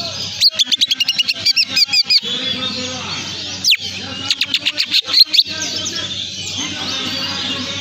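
Songbird singing a lure song meant to stir caged songbirds that are slow to come into form: quick runs of high chirps and whistles, with a single sharp falling whistle about midway and another fast run after it.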